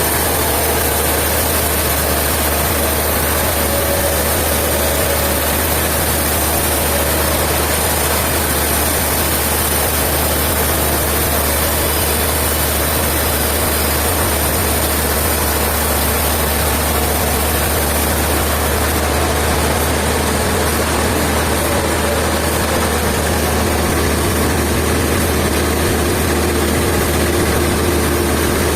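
Sawmill machinery running steadily with a low hum and a high hiss that drops away about two-thirds of the way through.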